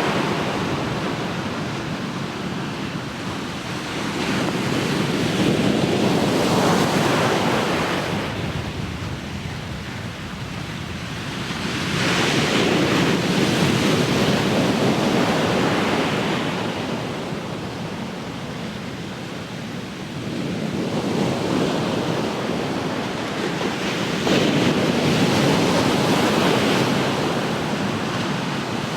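Ocean waves breaking and washing up the shore, the surf swelling and easing about every six to eight seconds, with some wind on the microphone.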